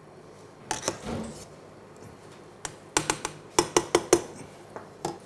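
Metal tongs clicking against a stainless steel stockpot while stirring fresh tagliolini in boiling water: a couple of sharp clicks about a second in, then a quick run of them in the middle and one more near the end.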